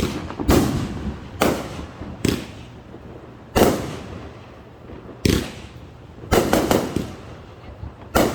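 Fireworks going off: about ten sharp bangs at irregular intervals, each trailing off in a rolling echo, with a quick run of three about two-thirds of the way through.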